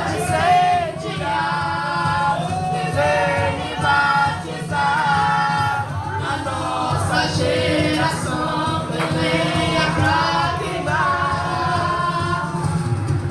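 Youth choir singing a gospel song in Portuguese, several voices together over a steady instrumental accompaniment.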